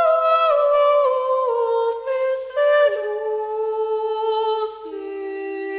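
Unaccompanied voice singing a slow, wordless line of long held notes that step down in pitch, with a breath taken about halfway through and another near the end.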